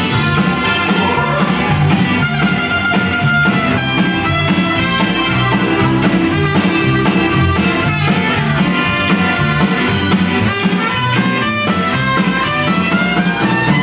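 Live Tex-Mex rock band playing an instrumental passage: trumpet lead over electric guitar, keyboard and drum kit, with no singing.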